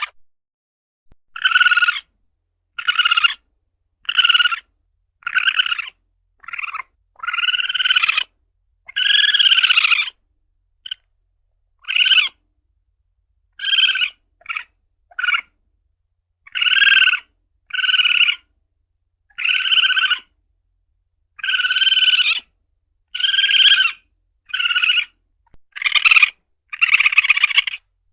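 Asian palm civet (luwak) calling over and over: a run of short, harsh, pitched calls about a second apart, some drawn out longer, with dead silence between them.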